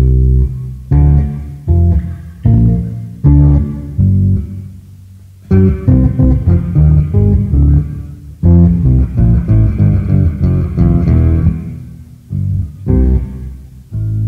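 Unaccompanied electric bass played live: single plucked notes ring out and die away about once every three-quarters of a second. From about five and a half seconds in come two fast runs of notes, split by a short break, before it slows to a few separate notes again near the end.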